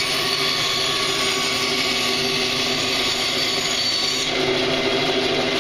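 Delta bandsaw running, its blade cutting straight across a wooden board with a steady hiss over the motor's hum; the cutting hiss thins about four seconds in.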